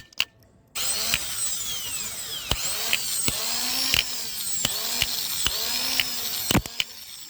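A small electric motor runs on test, starting about a second in after a couple of clicks. Its whine sweeps up and down in pitch over and over in a regular cycle, with sharp ticks scattered through it.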